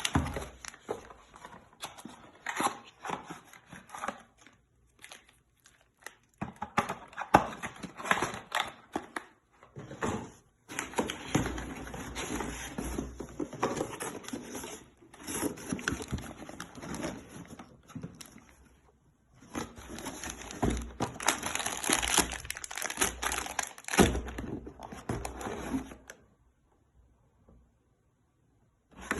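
Plastic packaging crinkling and rustling as the parts of an engine rebuild kit are handled, with scattered clicks and knocks. It goes quiet about three seconds before the end.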